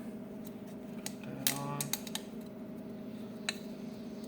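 A few sharp clicks and a short squeak, loudest just before two seconds in, as a new oil filter cartridge is worked into its plastic housing, over a steady low hum.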